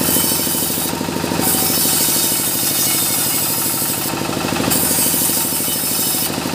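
Sawmill saw machine running steadily with a fast, even pulsing beat, while mahogany strips are worked at its table. Short bursts of high hiss come three times: about a second in, around four seconds in and near the end.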